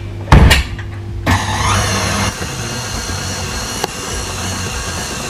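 A loud thump, then about a second in a stand mixer's motor starts and runs steadily, its paddle attachment beating dry baking ingredients in a steel bowl.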